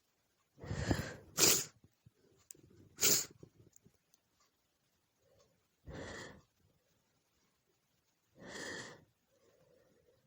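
A woman sneezing in a run of separate sneezes: two loud, sharp ones in the first few seconds, then two weaker ones further on.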